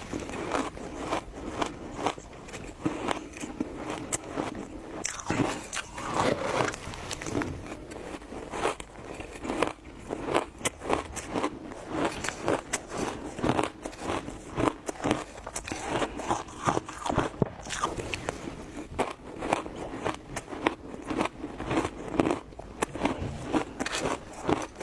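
Close-up sound of a person biting and chewing crunchy ice: continuous irregular crunching and crackling as the ice breaks between the teeth.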